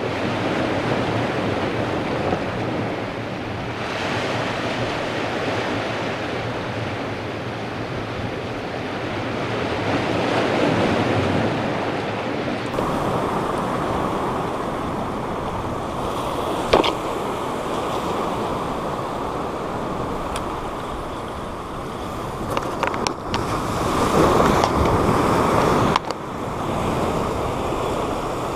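Ocean surf breaking and washing over the boulders of a rock wall, a steady rush of water. About two-thirds through there is a single sharp click, and near the end a louder surge of wash that cuts off suddenly.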